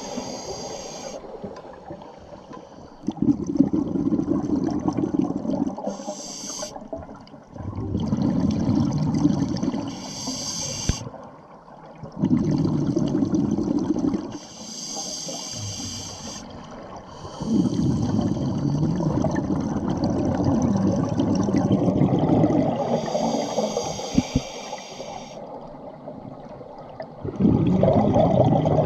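Scuba diver breathing through a regulator underwater: a short hissing inhale through the second stage, then a longer rumbling rush of exhaled bubbles, repeating in a slow, even cycle of about five breaths.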